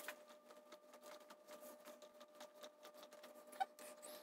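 Faint irregular clicks and rubbing of fingers working a plastic retaining ring onto a BCD's dump valve, with one sharper click about three and a half seconds in. A faint steady hum sits underneath.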